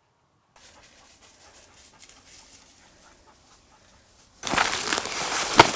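Faint footsteps and brush noise, then loud rustling and crashing through dry cover about four seconds in, with one sharp crack near the end.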